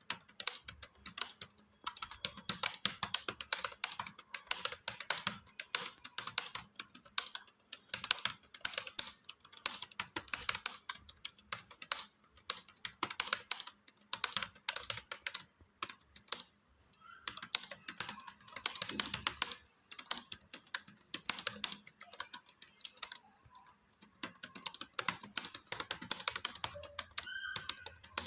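Fast, continuous typing on a laptop keyboard, rapid key clicks with short pauses between bursts of words.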